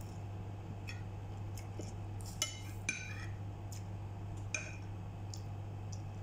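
Metal spoon and fork scraping and clinking against a ceramic plate while eating, with a few sharp clinks that ring briefly, the loudest about two and a half, three and four and a half seconds in. A steady low hum runs underneath.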